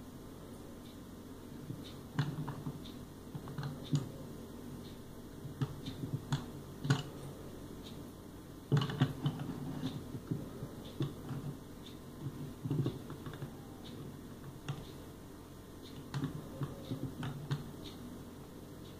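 Meknex metal construction-kit toy car with plastic wheels being handled and moved about on a wooden table: irregular clicks and light knocks of the perforated metal plates, bolts and wheels, with a sharper knock about nine seconds in.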